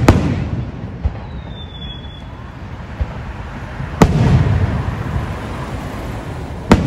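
Aerial fireworks shells bursting overhead: three loud bangs, one just after the start, one about four seconds in and one near the end, each trailing off in a low rolling echo. Fainter pops come between them.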